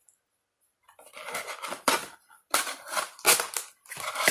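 Rustling and scraping of toy packaging being handled, plastic and cardboard, in irregular bursts that start about a second in.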